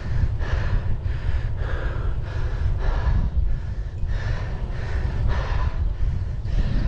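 A cyclist breathing hard and fast, about two breaths a second, over a steady low rumble of wind on the microphone.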